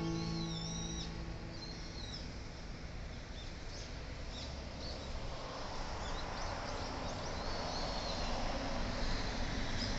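Birds chirping and calling in short, repeated high notes over a steady outdoor background hiss that grows louder about halfway through. Guitar music fades out in the first second or two.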